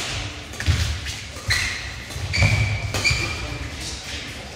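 Badminton rally: rackets striking the shuttlecock a little under once a second, with players' shoes squeaking and feet thudding on the court floor.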